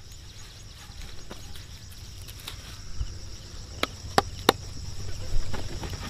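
Faint outdoor background with a steady high hiss and a low rumble, broken by three sharp clicks or snaps close together about four seconds in.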